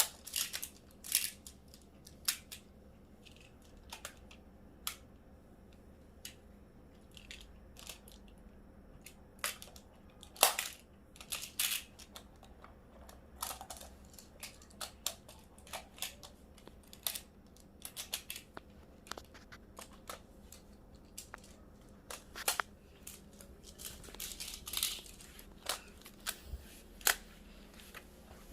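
Plastic magnetic building tiles clicking and clacking as they are handled and snapped together: irregular sharp clicks, the loudest about ten seconds in.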